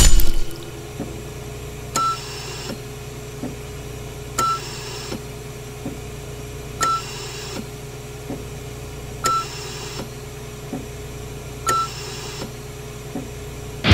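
Sci-fi spacecraft cabin sound effect: a steady low electronic hum with a short beep and a brief hiss repeating about every two and a half seconds, five times. A brief loud burst opens it.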